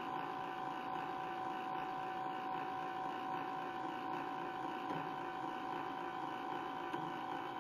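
Stepper motor driving a rotary table, turning the blank slowly at a constant rate in rotate mode for a runout check: a steady whine.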